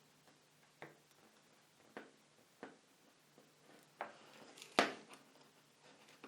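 Faint sharp clicks and taps, about one a second, the loudest one near the three-quarter mark: small hand tools and a circuit board being handled while soldering a through-hole kit.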